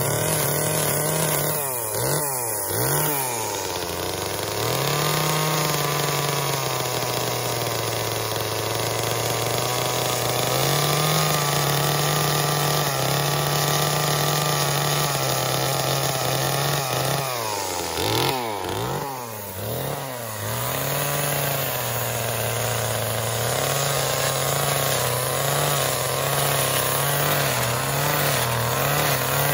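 Gas chainsaw held at high revs while cutting into a wood carving. The engine note drops and picks back up about two seconds in, and again in several quick dips about two-thirds of the way through, as the throttle is eased and squeezed.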